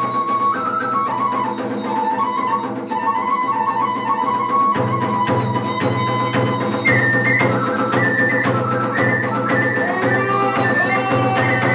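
Iwami kagura hayashi: a Japanese bamboo flute (fue) plays a stepping melody that climbs higher about seven seconds in, over a steady beat of drums.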